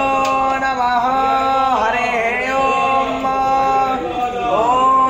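Male devotional chanting sung in long held notes, with the pitch sliding into each new phrase.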